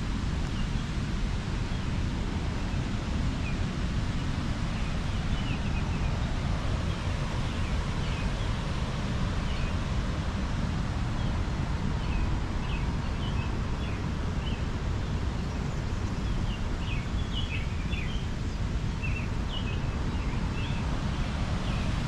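Small birds chirping now and then, more often in the second half, over a steady low rushing noise.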